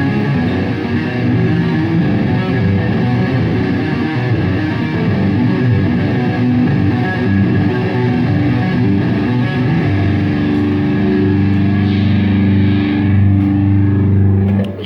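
Live band playing through amplifiers, led by a distorted electric guitar. The busy playing gives way about ten seconds in to a single held chord, which cuts off abruptly near the end.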